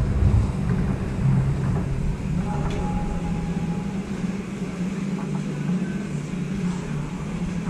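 Steady low hum in an enclosed racquetball court, with a faint single knock about three seconds in.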